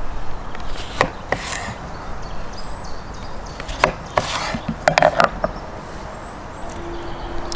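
Kitchen knife cutting lemons on a wooden cutting board: a few sharp knocks of the blade on the board, about a second in and again around four and five seconds in, with short rasps of the blade through the fruit.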